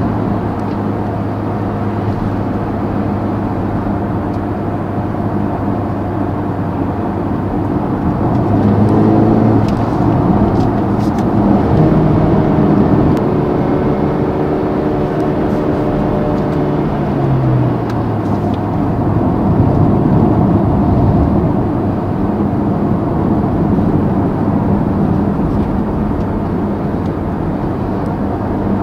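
Mercedes-AMG GLB 35's 2.0-litre four-cylinder engine heard from inside the cabin over steady tyre and road noise while driving. About eight seconds in the engine note rises and grows louder, holds at the higher pitch for several seconds, then falls back to a steady cruise.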